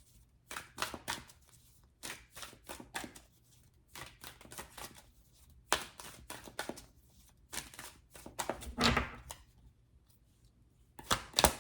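A deck of tarot cards being shuffled by hand: runs of quick card-on-card clicks and slaps, in several bursts separated by short pauses.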